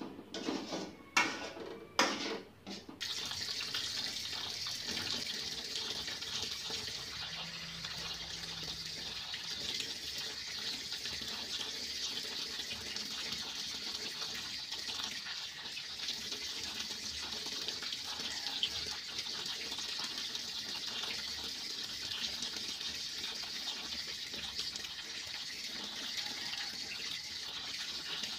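A few short loud knocks in the first three seconds, then water from a kitchen tap runs steadily into a sink while hands wash food under it.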